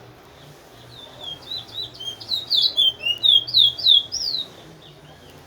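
A twa-twa (chestnut-bellied seed finch) singing one phrase: a quick run of clear whistled notes, mostly sliding downward, that grows louder toward the end and stops about four and a half seconds in.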